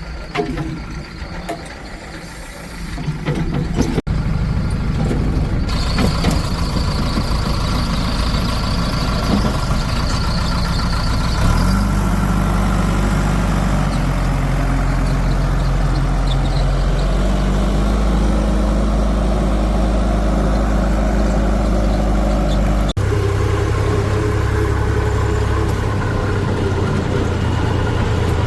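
Heavy diesel engine running loudly and steadily, its pitch stepping up and down a few times.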